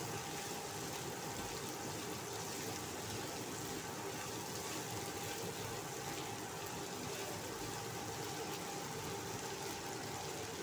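Fried tempe strips, green chili and shallots sizzling steadily in hot oil in a wok as they are stir-fried.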